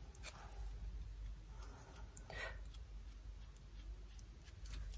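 Faint scratching and small clicks from makeup tools being handled, with one short soft hiss about two and a half seconds in.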